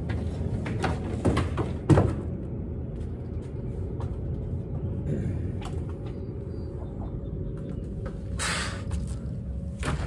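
A steady low machine rumble with a faint steady hum, broken by a few sharp knocks in the first two seconds and a short hiss about eight and a half seconds in.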